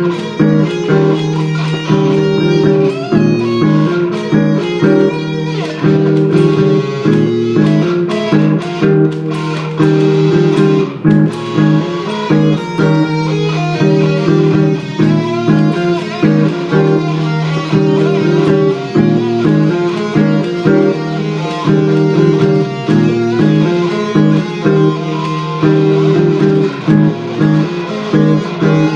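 Gibson Les Paul electric guitar playing lead lines with vibrato over a repeating looped chord pattern from a Boss loop pedal.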